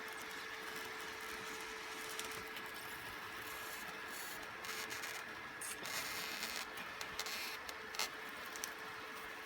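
Extruded polystyrene foam board being cut with a hot nichrome wire heated by a welding inverter: a steady hum over a hiss, with scratchy crackles and scrapes that come more often in the second half.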